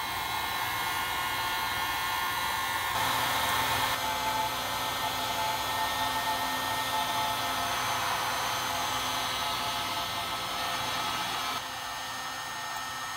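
Electric hot-air gun blowing steadily, pressed onto a pellet smoke tube to light the wood pellets. Its fan note steps up and gets louder about three seconds in, then drops back a little near the end.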